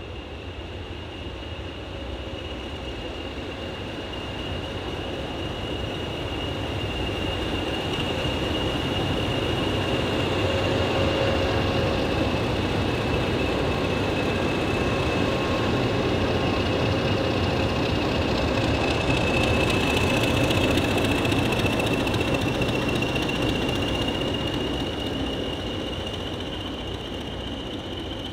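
Locomotive running light as it passes: a low engine rumble swells to a peak and then fades, with a steady high-pitched whine carried over it.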